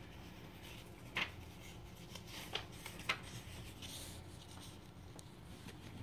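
A few faint, brief handling sounds (soft ticks and rustles, as of paper and hands) over quiet room tone: one a little over a second in, two more around the three-second mark, and a short rustle near four seconds.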